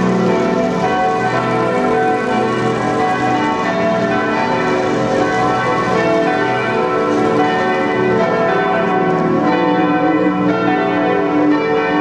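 The bells of Luxembourg's cathedral ringing a full peal: several bells sound together in a dense, unbroken stream of overlapping tones.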